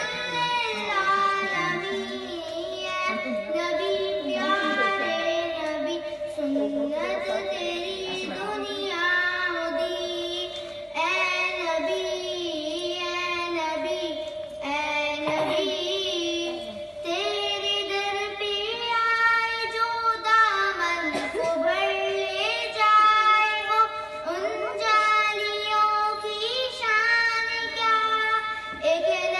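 Young girls singing a devotional naat together, a melodic chant with one note held steadily beneath the moving tune.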